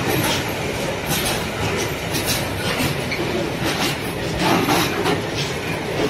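Freight train's loaded flat wagons rolling past close by: a steady rumble of wheels on rail, with repeated clacks as the wheels cross the track.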